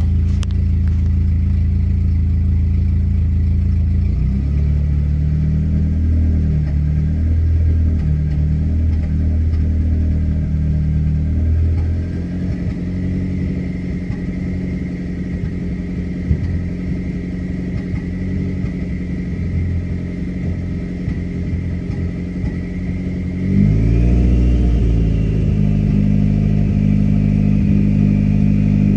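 Dodge SRT-4's turbocharged 2.4-litre four-cylinder engine running under light load, with a misfire the owner says can be heard under slight load. The engine note shifts about 4 seconds in, drops about 12 seconds in, and picks up again near the end.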